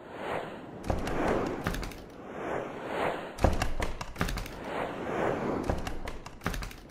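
Animated-intro sound effects: a string of whooshes swelling and fading about once a second, broken by several sharp cracks and low thumps.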